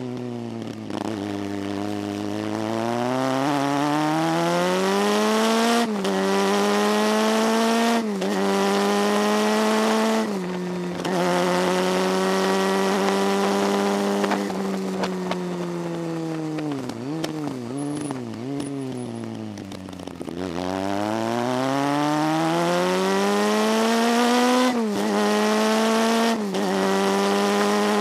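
Motorcycle engine pulling hard uphill, its pitch climbing and dropping sharply at each upshift, several times in the first half. Around the middle it winds down and slows with falling pitch for a bend, then accelerates again with two more upshifts near the end. Wind rushing over the microphone throughout.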